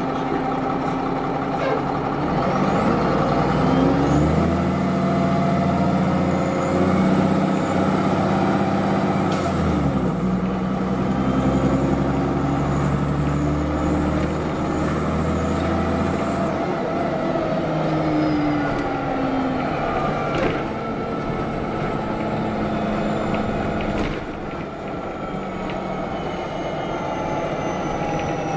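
Cummins ISM 10.8-litre diesel of a 2005 Orion V transit bus pulling away under load, with a high whine rising over the engine note and a gear change about a third of the way in. Past halfway it backs off and winds down as the bus coasts. Two sharp clicks follow near the end.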